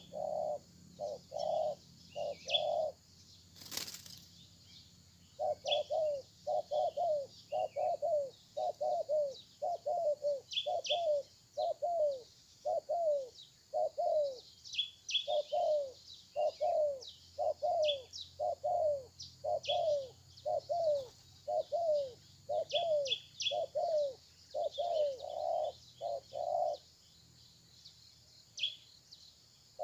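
Spotted dove cooing over and over, a steady string of short low notes that each fall in pitch, pausing briefly around four seconds in and again near the end. Small birds chirp thinly above it, and there is one sharp knock about four seconds in.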